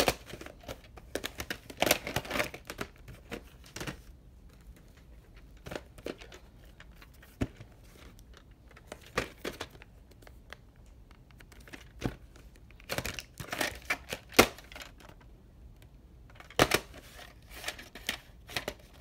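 Plastic clamshell VHS cases and black video cassettes being handled: scattered clicks and snaps of the plastic, with brief rustles, as tapes are put into and taken out of their cases. The clicks come in several clusters, one of the sharpest about two-thirds of the way through.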